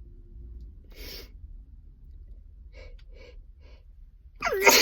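A person's sneeze building up: a sharp breathy inhale about a second in, a few short catching breaths, then a loud voiced gasp with a falling pitch near the end as the sneeze begins.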